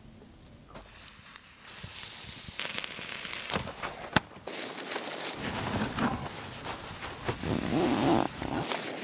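Wood campfire crackling and hissing, with one sharp pop about four seconds in.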